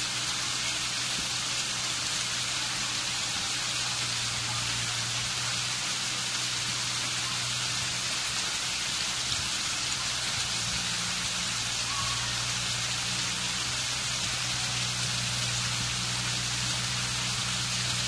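Man-made stone waterfall: water spilling in thin streams over stacked stone blocks and splashing onto the rocks below, a steady, even splashing hiss.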